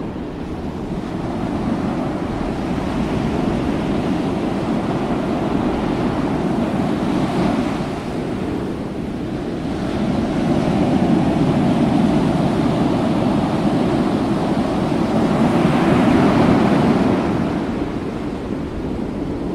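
Sea waves washing and breaking against a capsizing ship's hull, with wind buffeting the microphone: a steady rush of noise that swells twice, once around the middle and again near the end.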